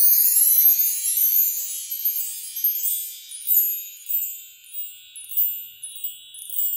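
High metallic chimes ringing: a dense shimmer of many high notes at first, then single chimes about once a second, each ringing away.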